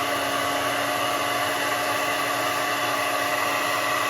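Hair dryer running steadily on high, a constant rush of air with a steady hum and whine.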